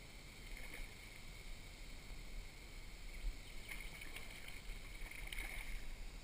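Tarpon splashing as it breaks the water's surface near the boat: several short splashes, the clearest about four and about five and a half seconds in, over a low steady rumble.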